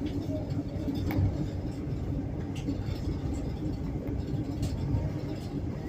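Passenger train running along the track, heard from inside a compartment car: a steady low rumble and hum with a few sharp clicks and knocks.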